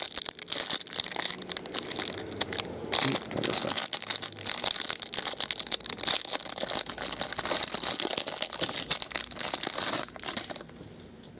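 Clear plastic wrapper of a trading-card pack crinkling and tearing as it is pulled open by hand, a dense crackle of plastic that stops near the end as the cards come out.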